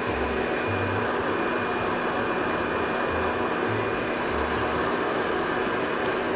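Electric blender motor running steadily at high speed, whirring as it blends nut milk and oil into vegan mayonnaise.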